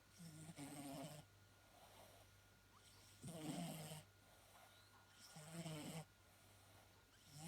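Domestic cat snoring in its sleep, faint: a low snore about every two seconds, three full snores with a fourth starting near the end, with softer breaths between them.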